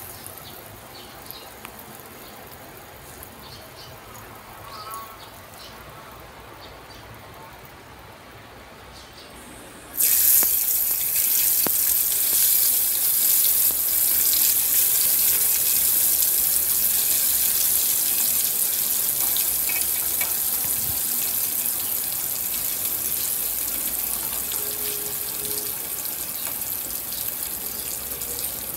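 Spiced chicken deep-frying in hot oil in a wok. It bubbles and crackles faintly at first, then about ten seconds in a loud, hissing sizzle starts suddenly, as when more pieces go into the oil, and eases slowly.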